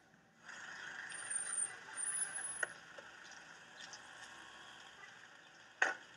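Street noise with a steady hiss, a brief high squeal about a second in, and one sharp slam near the end: a car door being shut.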